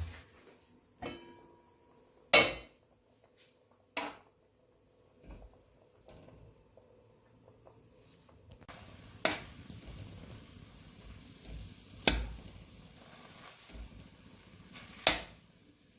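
Kitchen utensils knocking against cookware, several sharp strikes a few seconds apart, with a steady sizzling hiss from about nine seconds in.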